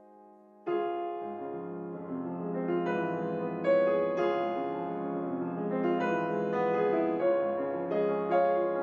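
Piano music: a chord dies away, and after a brief pause a new phrase of struck notes begins, building and continuing with a slow melody over sustained chords.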